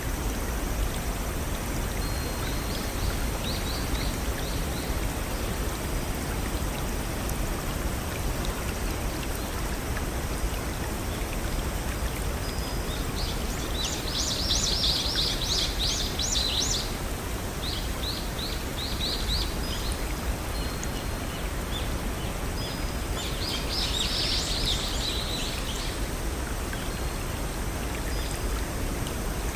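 Small brook and waterfall running steadily, with songbirds singing in bursts of quick high chirps. The chirping is loudest about halfway through and again later on.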